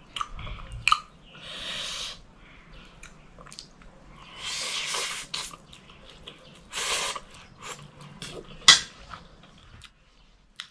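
Spicy noodles being slurped off a fork three times, each slurp an airy hiss of about a second, with small clicks between them and one sharp click about nine seconds in.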